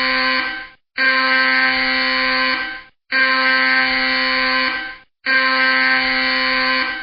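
Loud alarm sounding in long, even blasts of about two seconds, each cut by a brief silent break: the end of one blast, then three more in steady rhythm.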